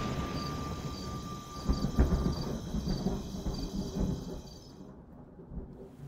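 Rolling thunder: a low rumble that swells several times, strongest about two seconds in, then dies away over the last couple of seconds.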